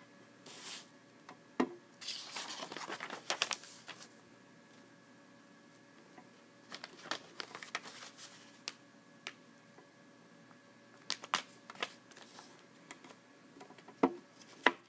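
Thin translucent paper being folded and creased around a bar of soap on a wooden table, crinkling and rustling in scattered bursts, with a couple of sharp knocks near the end.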